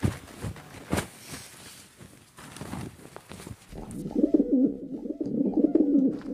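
Two sharp knocks about a second apart and some scuffling, then pigeons cooing in a low, wavering run from about four seconds in.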